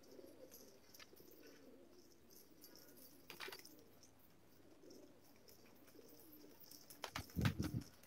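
Domestic pigeons cooing softly, with a few short sharp clicks and a louder knock near the end.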